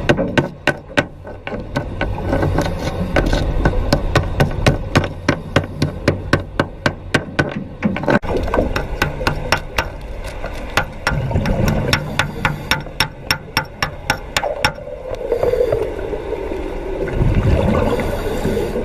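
Underwater wet welding: rapid crackling clicks, about four a second, over a low rumble of water and bubbles. The clicks stop about three quarters of the way through, leaving a wavering bubbling rumble.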